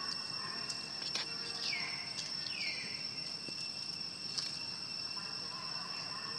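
Steady, high-pitched insect drone. Two short calls sweep downward about one and a half and two and a half seconds in, with a few faint clicks.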